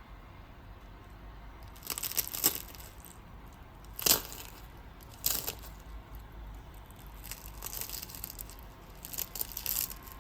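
Crisp, freshly baked Bosnian spinach börek crust crackling and crunching as it is broken into, in irregular bursts, the sharpest about four seconds in. The crackle shows the pastry has baked crisp.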